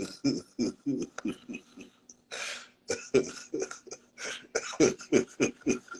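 A man laughing hard in rapid short bursts, with a breathy gasp a little after two seconds in.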